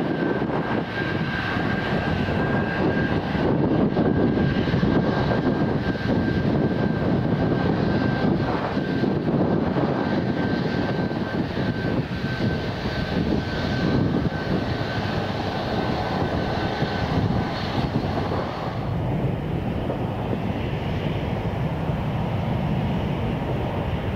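Jet engines of a departing Boeing 787-8 at takeoff power: a deep, steady rumble with a thin, steady high whine over it. About 18 seconds in the whine stops, and a quieter jet rumble follows from a Boeing 737 MAX 9 coming in to land.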